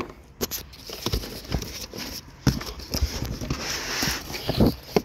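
Cardboard shipping box being opened by hand: irregular knocks and scrapes of the flaps, and a stretch of rustling from the bubble-wrapped contents a few seconds in.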